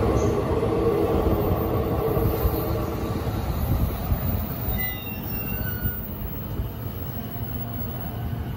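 JR East E233-0 series electric commuter train standing at the platform with a steady electric hum, then starting to pull away about halfway through. Its motor drive gives a few brief high tones as it moves off.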